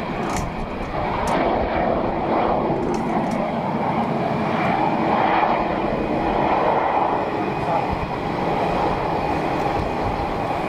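Airliner engines running, a loud, fairly steady rush of noise with shifting swells.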